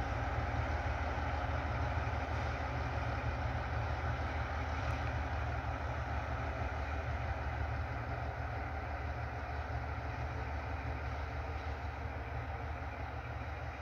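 TGM4 diesel-hydraulic shunting locomotive running light, its diesel engine droning steadily as it moves away, slowly fading.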